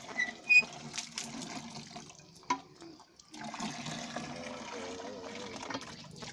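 Hand-operated tube-well pump being worked: water gushes from the spout into a plastic tub, with a couple of short handle squeaks and sharp knocks in the first few seconds.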